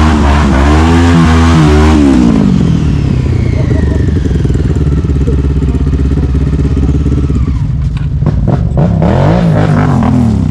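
Quad (ATV) engine revving unevenly, then dropping back to a lower steady run about two seconds in. Near the end come several knocks and a short burst of revs.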